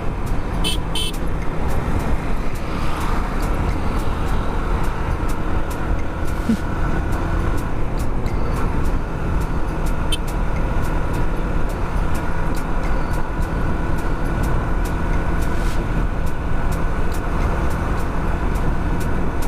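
Yamaha R15 v2's single-cylinder engine running at a steady cruise while riding, with wind and road rumble.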